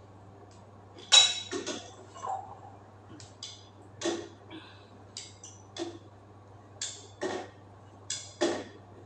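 A metal hand tool clinking and tapping against the chrome wall valve of a bidet spray while a new fitting is put in, about a dozen sharp, irregularly spaced clinks. A steady low hum runs underneath.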